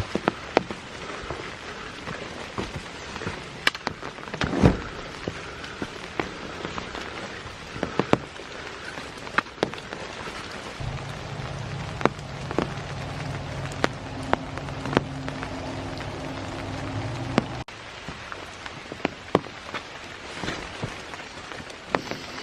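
Steady rain falling, with frequent sharp taps of single large drops. A low steady hum joins about eleven seconds in and cuts off abruptly a few seconds before the end.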